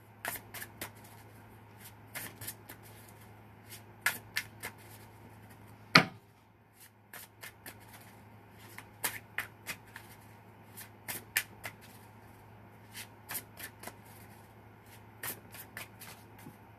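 A deck of tarot cards shuffled by hand: short clusters of soft card snaps and flicks, with one sharper knock about six seconds in.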